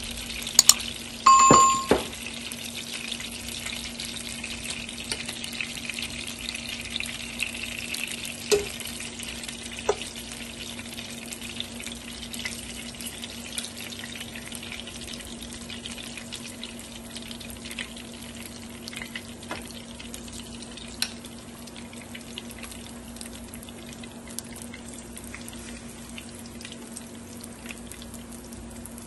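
Food frying in a pan: a steady sizzle with fine crackling that slowly dies down, over a steady low hum. A short, loud beep sounds about a second and a half in.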